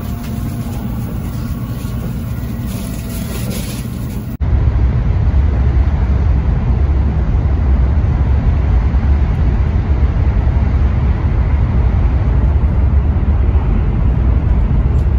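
Steady running noise of a Shinkansen bullet train at speed heard from inside the passenger cabin: an even rumble and hiss with no knocks or jolts. About four seconds in it cuts abruptly to a louder, deeper rumble.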